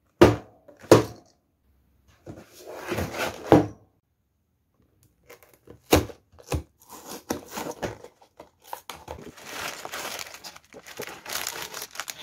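Cardboard Lego set box handled and opened: a few sharp knocks and taps on the box, the end flap pried open, then sealed plastic bags of Lego bricks crinkling with the small parts rattling inside as they are laid out.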